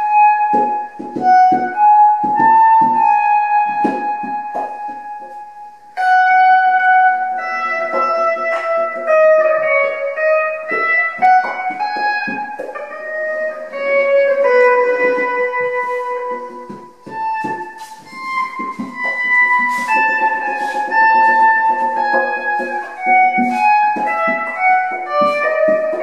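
Improvised live music: guitar playing long, sustained melodic notes that overlap and shift in pitch, with scattered percussion strikes. The notes drop away briefly just before the middle of the passage, then come back.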